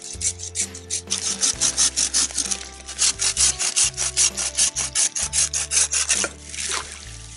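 Small folding ash-framed buck saw cutting through a freshly cut sapling about two inches thick, with fast, even back-and-forth strokes rasping through the green wood. The sawing stops a little after six seconds in.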